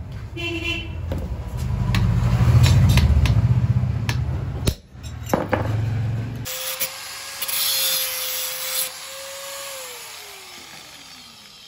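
Steel strip being worked by hand with a punch over a heavy iron block: rubbing and scraping with a few sharp knocks. Partway through, an angle grinder with a cutting disc takes over with a steady whine and about two seconds of hissing cutting, then its whine falls as it is switched off and spins down.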